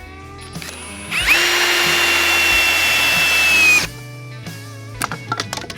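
Cordless drill driving a screw into a wooden board: the motor spins up to a steady high whine for about two and a half seconds, then stops. A few light clicks follow near the end.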